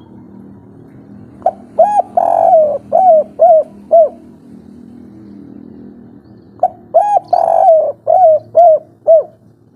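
Spotted dove (tekukur) singing the 'kuk 3' song twice, about five seconds apart. Each phrase is a couple of short coos and a longer rolling coo, ending in three short 'kuk' notes.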